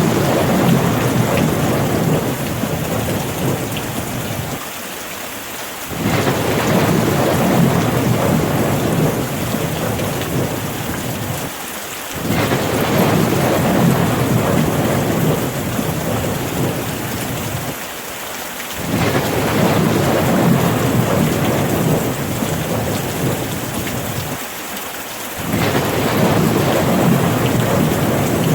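Rain falling steadily, with a deep rumbling swell that comes in suddenly and dies away over several seconds. The swell repeats evenly about every six and a half seconds, as in a short looped recording.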